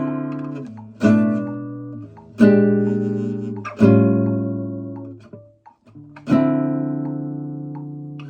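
Kazuo Yairi CY 130 acoustic guitar, made in Japan in 1976, played as a sound check: four chords strummed one at a time, each left to ring out and fade before the next, with a brief pause before the last.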